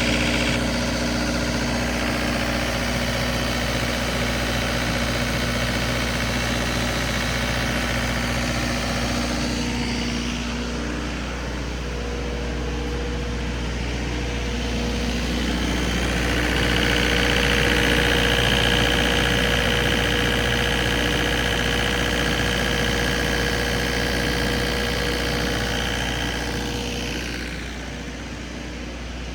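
Turbo diesel generator engine running steadily, hand-wired to run with 12 volts fed straight to its fuel shut-off solenoid. A higher whine comes in about halfway through and fades out near the end.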